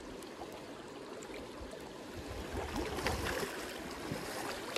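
River current running steadily, with a little faint splashing about three seconds in.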